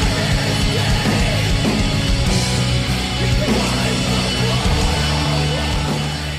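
Heavy rock music with a steady bass line.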